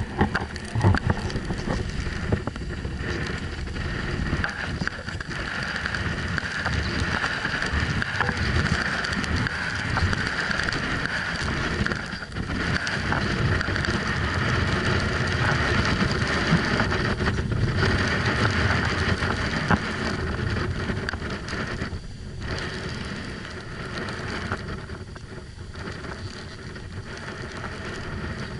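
Snowboard sliding and carving down packed snow: a steady scraping hiss of the board on the snow mixed with wind across the microphone, easing off briefly a few times. A few sharp knocks at the start.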